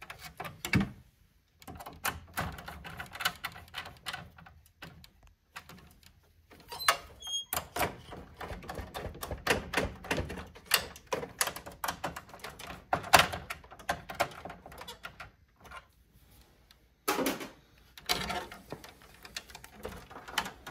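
Socket ratchet clicking in quick runs as nuts are tightened down onto threaded studs, with a few louder metal knocks in between.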